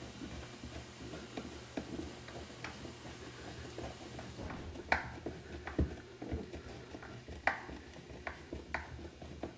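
Scattered small clicks and taps of hands and a screwdriver working plastic parts inside a refrigerator's ice maker compartment, with a few sharper clicks in the second half, over a faint steady low hum.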